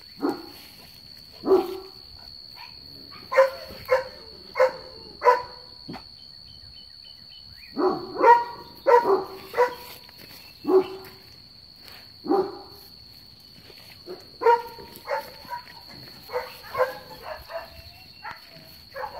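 A dog barking in short, sharp calls, some alone and some in quick runs of three or four, over a steady high-pitched tone.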